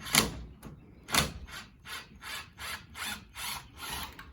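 Hart 20-volt brushless impact driver backing a screw out, its hammering rattle coming in short repeated bursts about three a second. The bursts are louder at first and stop near the end as the screw comes free.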